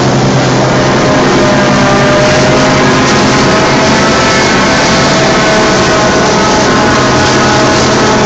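Forage harvester running under load while cutting and chopping sorghum: a loud, steady machine drone of engine and cutting header.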